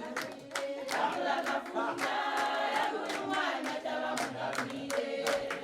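A group singing together with steady hand clapping.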